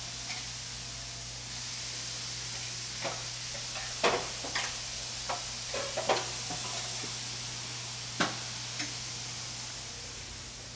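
A steady hiss with a scatter of sharp knocks and clicks, about six of them, the loudest around the middle.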